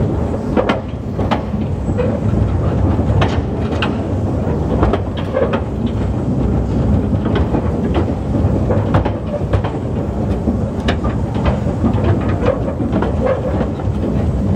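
Narrow-gauge rail vehicle riding along the track: a steady rumble of wheels on rail, with irregular sharp clicks as the wheels pass over rail joints.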